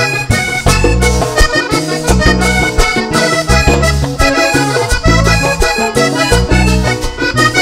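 Vallenato band playing an instrumental passage led by a Hohner Corona III three-row button accordion, which carries a busy melody over electric bass, a caja drum and a metal guacharaca scraper keeping a steady beat.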